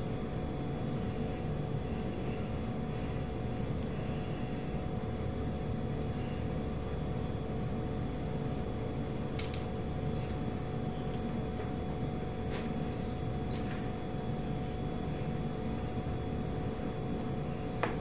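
Steady machine hum with a low rumble, like a running household appliance or fan, with a few faint taps and one sharper click near the end.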